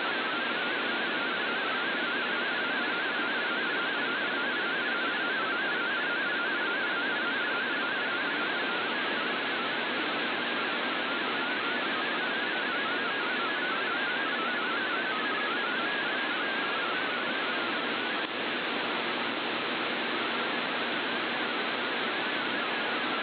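MFSK32 digital text signal received over shortwave AM radio: a fast warble of hopping tones buried in heavy shortwave static hiss.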